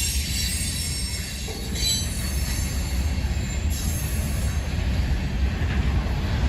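Freight train rolling past: a steady low rumble of the cars, with a high-pitched squeal of steel wheels on the rails.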